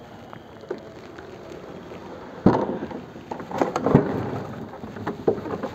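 Handling noise from a boiler model's casing being opened: a sharp knock about two and a half seconds in, then rattling and scraping with another knock about a second later.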